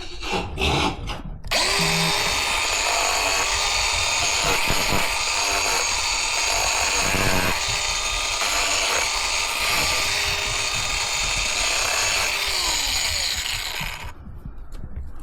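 Angle grinder grinding down a miniature horse's hoof during a trim. It starts abruptly about a second and a half in, runs steadily with its pitch sagging briefly several times as it bites, and stops near the end.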